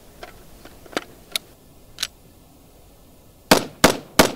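A few sharp clicks as the rifle is drawn and handled, then the rifle fired three times in rapid succession, about a third of a second apart, near the end.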